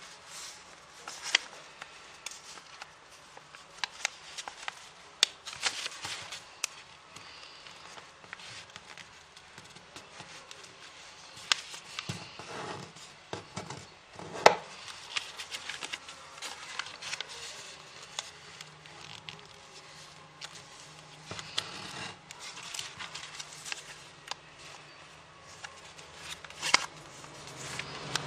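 A square sheet of origami paper being folded and creased by hand on a table: crinkling rustles and crisp clicks as fingers press the folds flat, the loudest a sharp crack about halfway through.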